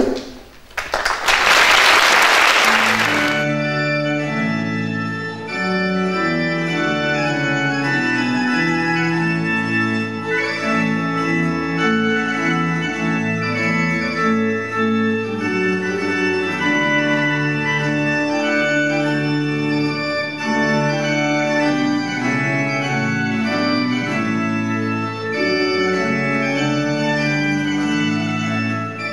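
A brief loud rush of noise in the first few seconds, then organ music: a slow melody over held chords.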